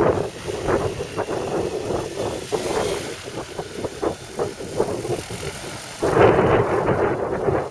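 Single-seat autogyro's engine and pusher propeller running as it taxis, with wind buffeting the microphone. It gets noticeably louder and fuller about six seconds in.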